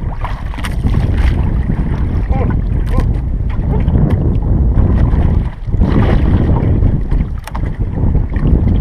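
Wind buffeting the camera microphone in a small fishing canoe at sea: a loud, steady rumble that dips briefly about five seconds in.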